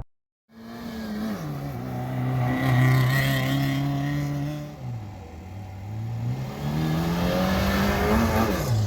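Off-road racing vehicle's engine running hard, its revs dropping sharply about a second in and again near the middle, then climbing steadily before dropping once more near the end, as at gear changes.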